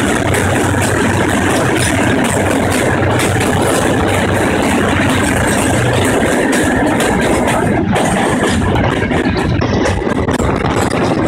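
Passenger train running through a rock railway tunnel, heard from beside the carriage: a loud, steady rumble with a low hum that drops away about six seconds in, turning choppier near the end.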